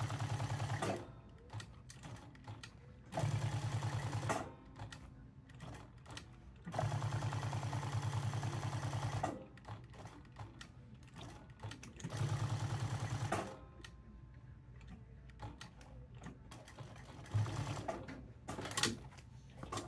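Jack S5 sewing machine stitching through a leather patch onto a cap in several runs of one to two and a half seconds, stopping between runs while the cap is turned, with a couple of short stitch bursts near the end.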